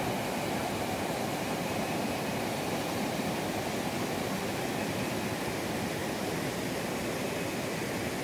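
Creek water rushing steadily over a shallow rocky riffle.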